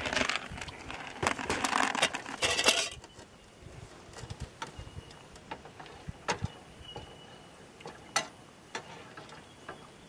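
A plastic packet rustles as small dry shell pasta is poured from it into a cooking pot, for about the first three seconds. Then a wooden spoon stirs the pasta, giving scattered light knocks against the pot.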